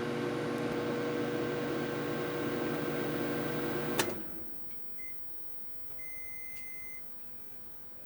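Microwave oven running with a steady hum, then a click about four seconds in as it shuts off and the hum winds down. A brief beep follows, then one longer beep lasting about a second, signalling the end of the cooking cycle.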